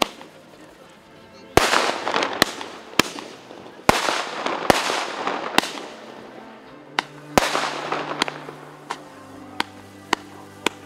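Fireworks going off: a string of sharp bangs and pops, with three bigger bursts about a second and a half, four and seven and a half seconds in, each followed by a crackling shower that fades over a second or two. Background music with held notes plays underneath.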